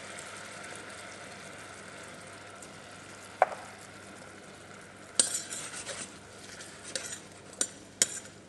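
Diced apples sizzling steadily in caramelised butter, sugar and orange juice in a stainless steel saucepan, with a single tap about three and a half seconds in. From about five seconds in the apples are stirred, the utensil clinking and scraping against the pan again and again.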